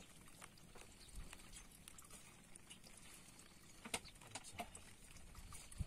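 Near silence: faint outdoor background with a few small scattered clicks, the sharpest about four seconds in and again near the end.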